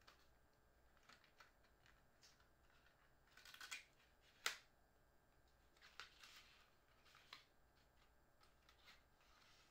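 Faint rustling and soft clicks of paper and card packaging from a phone box being handled. There is a brief flurry of rustling a little before halfway, and a single sharper tap about halfway through is the loudest sound.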